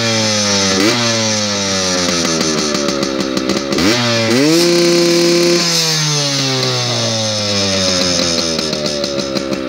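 Yamaha 100cc two-stroke dirt bike engine revved hard: the revs sag slowly, blip up briefly about a second in, then climb sharply about four seconds in, hold high for a second or so and wind slowly back down.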